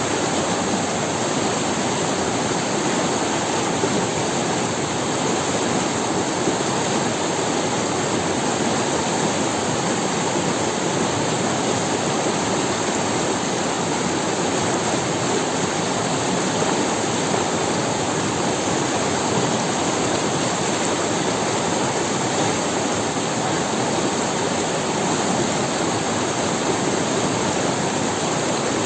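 River water running steadily over stones: an even, unbroken rush.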